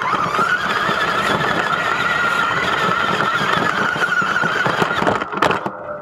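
Remote-control toy truck's electric motor and gears whining at a steady high pitch as it drives, over the rattle of its wheels on the ground. Two sharp knocks come near the end, and the motor then cuts off.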